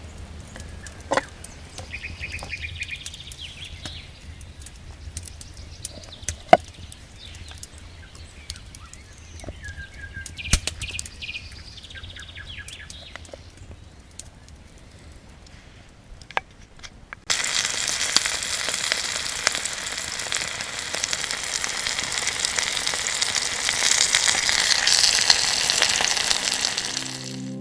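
Campfire crackling with scattered sharp pops, and a few bird calls. About two thirds of the way through, a loud steady sizzle of food frying over the fire starts abruptly.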